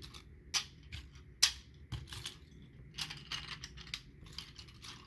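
Small plastic LEGO pieces clicking and clattering as a hand sorts and shifts them, with two sharper clacks early and a run of lighter clicks later.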